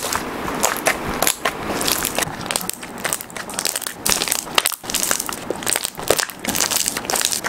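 Hands squishing and pressing a soft slime against a tabletop, giving a dense run of irregular crackling clicks.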